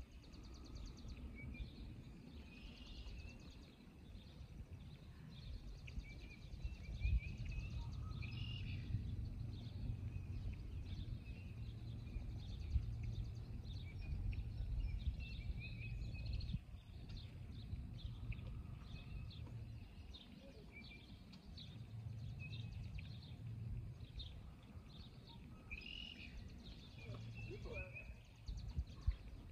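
Wild birds chirping and singing, with an uneven low rumble of wind on the microphone that swells and eases.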